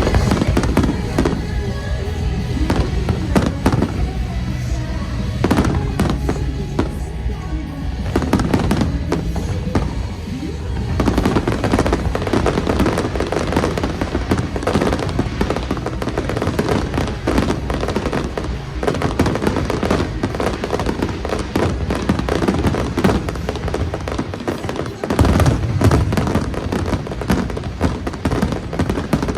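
Fireworks bursting over music played through loudspeakers. Scattered bangs at first, then from about eleven seconds in a dense, rapid run of bursts and crackle that keeps going to the end.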